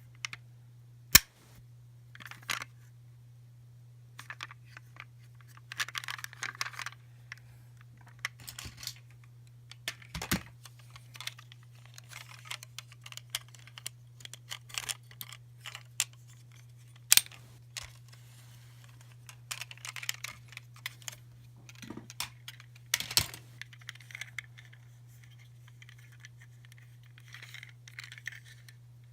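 Small hard plastic toys being handled: scattered clicks, taps and light rattles with short rustles, over a steady low hum.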